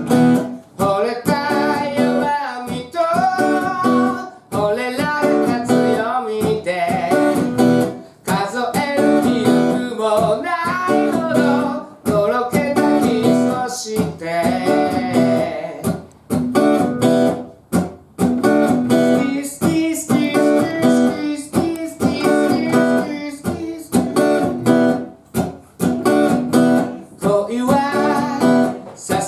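Acoustic guitar strummed in a steady rhythm, with a singer's voice over it.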